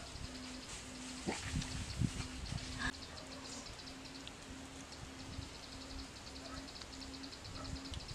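Background animal calls: a low note repeated about twice a second and a fast high chirring that comes and goes. A few soft knocks sound in the first three seconds.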